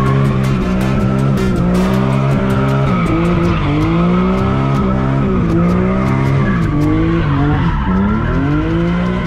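BMW E46 M3's S54 straight-six revving up and down again and again under hard driving, with the tyres squealing as the car slides.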